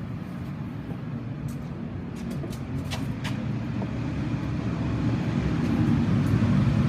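Steady low machine rumble that grows louder toward the end, with a few light clicks about two to three seconds in.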